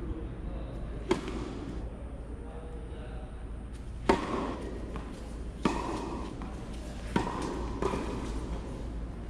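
Tennis ball being hit with a racket: a sharp pop about a second in, then three hits roughly a second and a half apart from about four seconds in, with a lighter knock shortly after the last.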